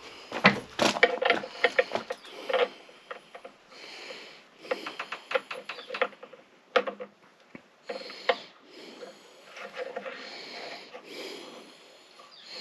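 Irregular clicks, taps and knocks of hand work on machine parts, with rustling in between. The knocks are densest in the first two seconds and again around five to seven seconds in.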